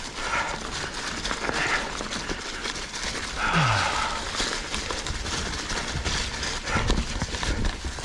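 Ibis Ripmo mountain bike rattling and knocking over a rocky trail, with the rider breathing hard and a short falling grunt about three and a half seconds in.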